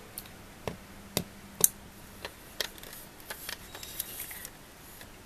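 Sharp plastic clicks and taps from a plastic Chocobo alarm clock being handled, with its reset button on the back pressed, followed by a stretch of rubbing and rustling about three to four seconds in as the clock is turned round in the hands.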